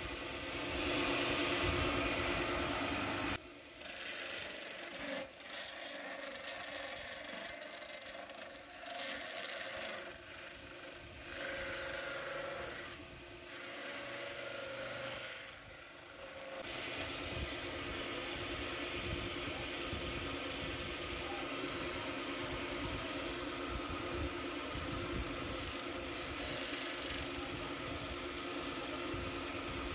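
Wood lathe running while a hand-held chisel scrapes and cuts a spinning wooden ghotna (masher), a hiss of cutting over a steady motor hum. The cutting comes and goes in the first half and runs evenly from about halfway on.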